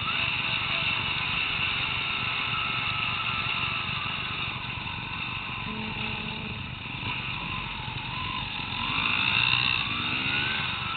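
Enduro dirt bike engine running as it is ridden, its pitch rising near the end as it accelerates.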